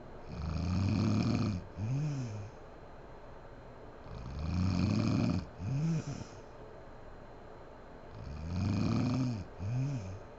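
A woman snoring in her sleep: three snores about four seconds apart, each a long snore followed by a short sound that rises and falls in pitch.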